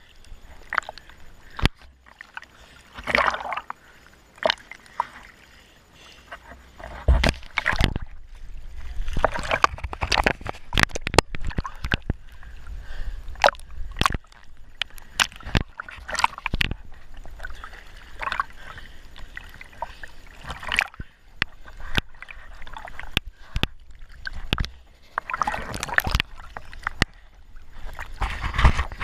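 Sea water sloshing and splashing against a camera that bobs at the surface and dips under it, with irregular sharp knocks throughout.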